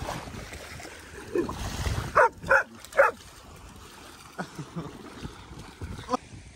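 A dog barking: three short, loud barks in quick succession about two to three seconds in, with fainter yelps before and after.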